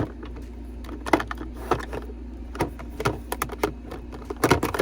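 Small plastic makeup compacts and cases clicking and clattering as they are handled, opened and set down, in irregular taps with a louder cluster near the end.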